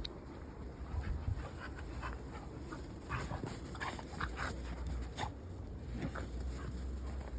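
Dogs panting in short, irregular breaths.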